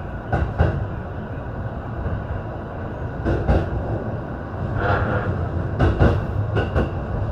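JR East E257 series 5500 electric train pulling out at low speed, heard inside the leading car: a steady low running rumble with the wheels knocking in pairs over rail joints and points. A brief squeal comes about five seconds in.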